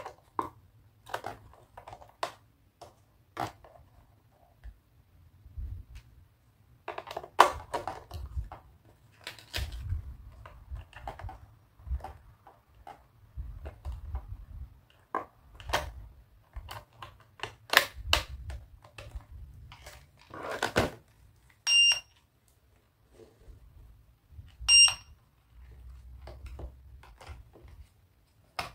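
Plastic clicks, taps and rattles of AA batteries being pressed into a toy cash register's battery compartment and its plastic cover snapped shut, then the register being handled. Two short electronic beeps from the toy come about three seconds apart near the end.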